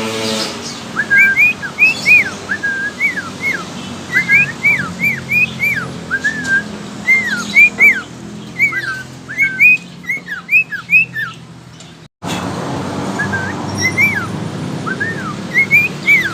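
Budgerigar whistling a string of clear, quick notes that rise and fall, several a second, over a low background hum. The sound breaks off briefly about twelve seconds in, then goes on.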